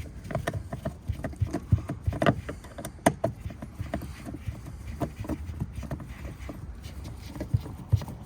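Irregular clicks and knocks of hands and a screwdriver working on a car's plastic interior door trim, unscrewing and prying out a panel.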